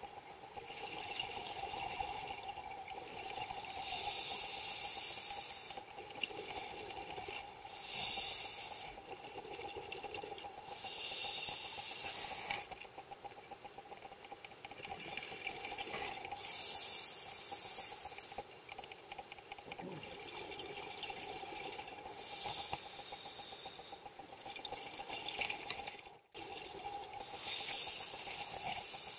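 Scuba diver's regulator breathing underwater, heard from the camera's position: bubbling, hissing exhalations in bursts of one to two seconds every five or six seconds, under a steady faint whine.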